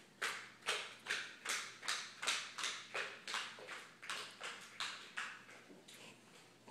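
Hands clapping in a steady rhythm, about two to three claps a second, growing gradually fainter and dying out near the end.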